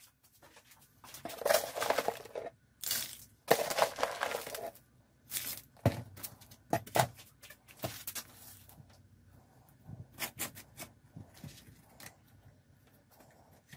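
Soil poured into a cut-down metal can in three rushing pours in the first few seconds, followed by scattered crumbly crackles and light clicks as the soil is handled and pressed down.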